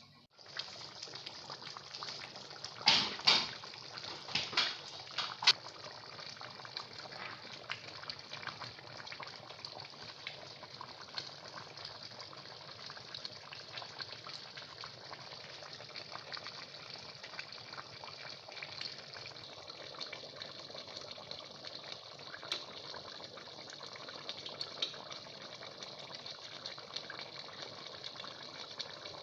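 Pot of fish benachin with vegetables boiling steadily, a constant bubbling hiss. A few sharp knocks come about three to five seconds in.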